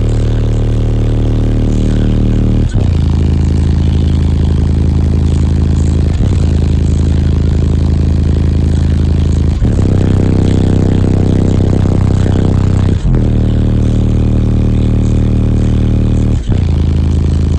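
Bass-heavy music played very loud through a high-power car-audio subwoofer system, heard from inside the truck's cab. Deep, sustained bass notes switch abruptly to new notes about every three and a half seconds.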